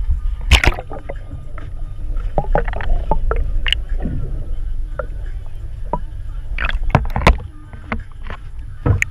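Low, steady rumble of wind and water around a small fishing boat drifting on open sea, broken by several sharp knocks and clicks from handling at the gunwale.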